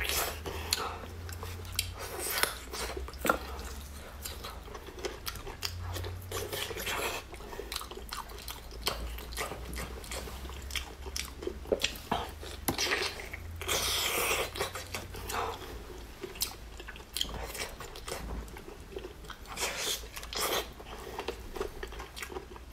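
Close-up biting and wet chewing of braised pork on the bone, full of irregular short clicks, with a louder stretch of chewing a little past halfway.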